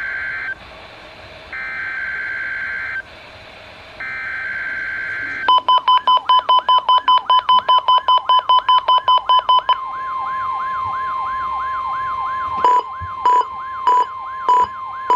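NOAA Weather Radio EAS data header: three short bursts of warbling two-tone digital data with gaps between them. About five seconds in, the steady 1050 Hz NWR warning alarm tone starts for the weekly test of the radios' alarm function. Weather alert radios sound their own alarms along with it: rapid beeping and a wavering siren tone, then slower loud beeps near the end.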